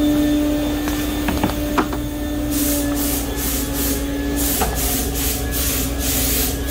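Steady machine hum; about two and a half seconds in, a paint spray gun starts hissing in rapid short bursts, misting on metal flake.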